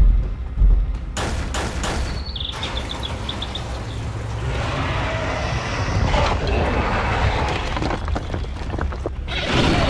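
Cartoon sound effects: heavy dinosaur footsteps thudding, then a quick run of sharp clicks and a few high chirps, followed by a long rumbling noise.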